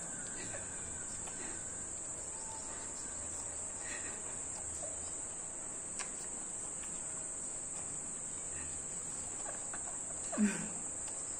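A steady, high-pitched whine that does not change, with faint soft ticks and a brief louder sound near the end.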